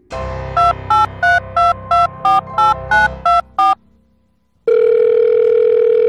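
Electronic beeps like phone keypad tones: about ten short beeps at changing pitches, some three a second. After a pause, one long steady electronic tone like a telephone dial tone begins and holds.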